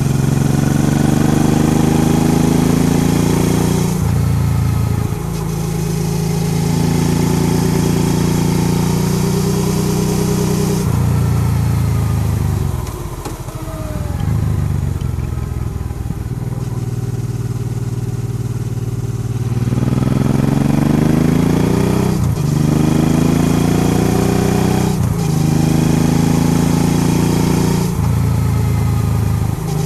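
Honda Transalp XL650V's 647 cc V-twin engine running under way, its pitch rising and falling with the throttle through bends. It eases off and winds down in the middle. Near the end it pulls hard again, with three quick gear changes in a row.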